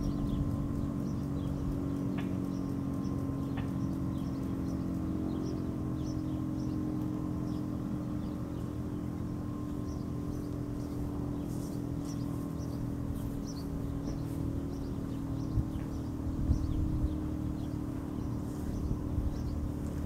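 Steady low hum of outdoor ambience, even in loudness, with birds chirping here and there.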